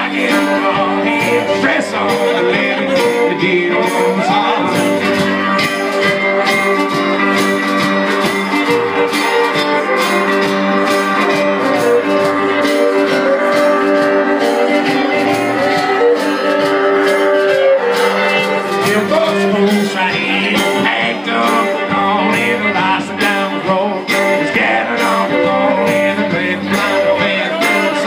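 A live band playing a song, a singer over the instruments with a steady percussive beat throughout.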